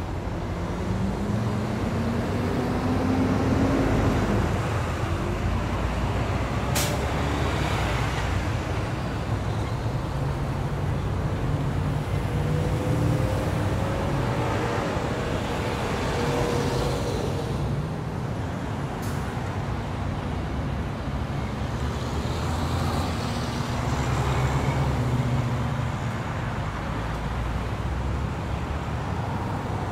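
Road traffic: a steady low rumble of passing vehicle engines, rising and falling as they speed up and slow down, with two sharp clicks, about seven seconds in and near nineteen seconds.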